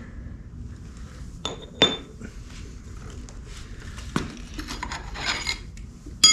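Metal tools and motorcycle wheel parts clinking and knocking against each other during front wheel removal: two sharp ringing clinks about a second and a half in, a knock about four seconds in, and a loud ringing metal clank at the very end.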